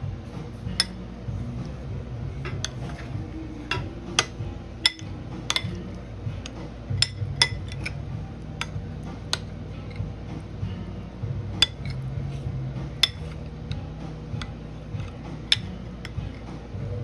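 Utensils clinking against dishes: about fifteen to twenty sharp clinks at irregular intervals, with a steady low background underneath.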